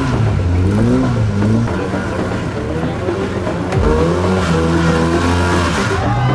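Off-road trial buggy's engine revving hard under load, its pitch rising and falling again and again as the throttle is worked.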